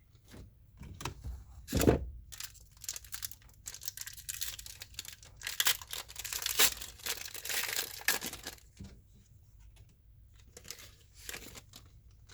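A trading-card booster pack's foil wrapper being torn open and crinkled, with a single thump about two seconds in.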